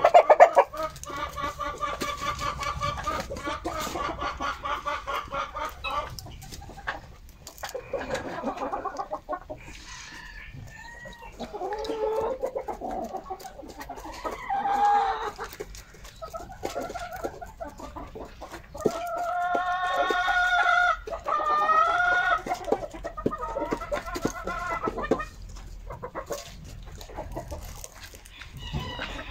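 Chickens clucking and calling, a run of drawn-out calls one after another, loudest about two-thirds of the way through.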